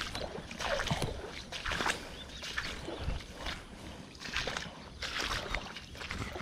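Footsteps wading through shallow floodwater and wet grass, a splashing swish with each step, repeating every half second to a second.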